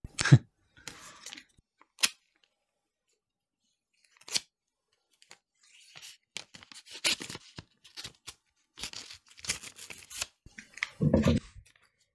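Paper envelope handled and slit open with a knife: a knock at the start, then scattered rustling and the rasp of the blade tearing through the paper, densest from about six to ten seconds in. A short low voice sound near the end.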